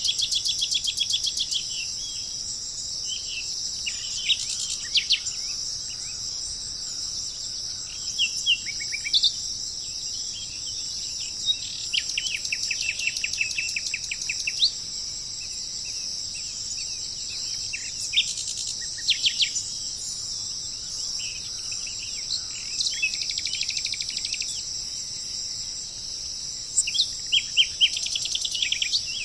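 Steady high chorus of insects, crickets among them, with birds calling over it: several rapid trills of quick repeated notes and scattered short chirps.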